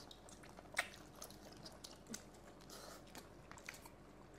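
Quiet eating sounds at a table: chewing and scattered small clicks, the sharpest about a second in.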